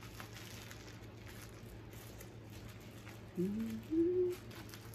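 Faint rustling and picking at clear plastic wrapping by hand as it resists opening. About three and a half seconds in come two short hums from a woman.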